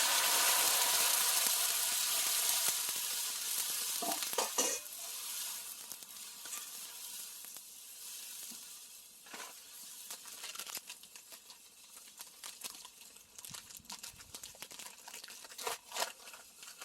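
Water poured onto a hot cast-iron pot-lid griddle, sizzling and hissing loudly. After about five seconds it drops to a faint sizzle with scattered clicks and taps.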